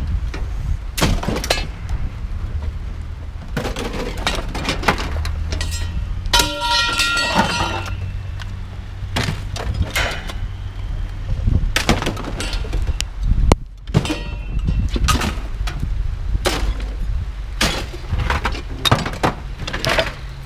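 Scrap metal crashing and clanking again and again over the steady drone of a heavy diesel engine, as at a scrapyard material handler working the pile. A brief metallic squeal rings out about six to eight seconds in.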